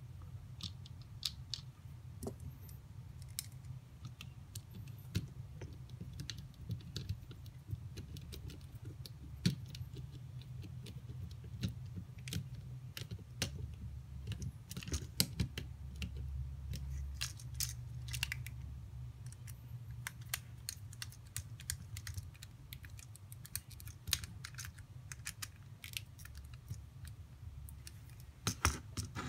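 Light, irregular clicks and taps of hands handling small plastic kit parts and wires, with a cluster of sharper clicks near the end, over a low steady hum.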